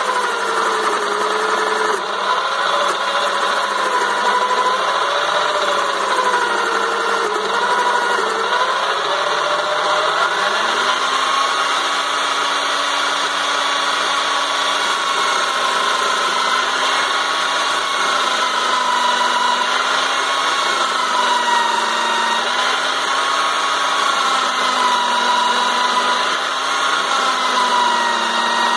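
Lidl Parkside mini lathe's motor running while a chisel scrapes the spinning wooden workpiece, its whine wavering up and down in pitch as the tool bears on the wood. About ten seconds in, the pitch steps up and keeps wavering.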